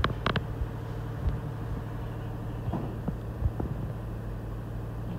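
A steady low background hum, with two sharp clicks right at the start and a few faint knocks after.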